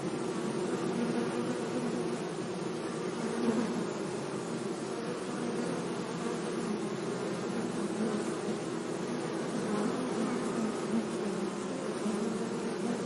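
A flying bee buzzing, a continuous low drone that wavers slightly in pitch and loudness.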